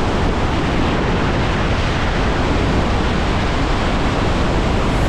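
Steady roar of the Iguazu Falls at the Devil's Throat: a dense, unbroken rush of falling water with a deep low rumble.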